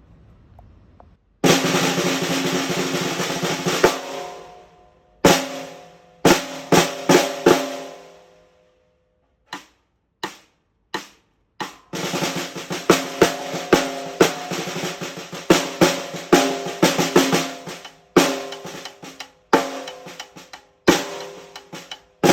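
Pearl Reference 14x6.5 snare drum being played: a roll lasting about two and a half seconds, then single strokes and short figures, a few softer taps, and from about halfway a busy run of strokes, each ringing on briefly.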